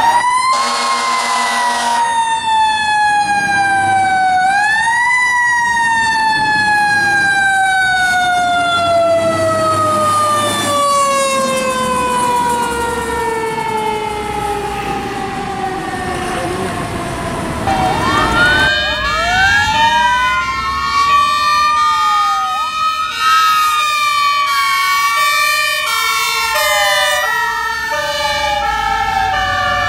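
A fire truck's mechanical siren, a Federal Q-type, coasting slowly down in pitch, spun up briefly about four seconds in, with an air horn blast in the first couple of seconds. About eighteen seconds in, electronic wail sirens rise and fall over a two-tone horn alternating high and low.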